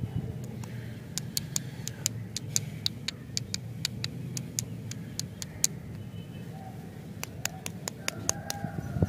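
Paper-wrapped stick lollipops being handled: a string of sharp, irregular crinkles and clicks from the wrappers and sticks, several a second, over a low steady hum.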